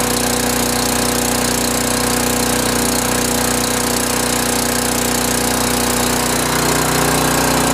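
2003 Generac 5 kW portable generator's 10 hp Briggs & Stratton overhead-valve engine running steadily, with a slight shift in its tone and a small rise in level near the end.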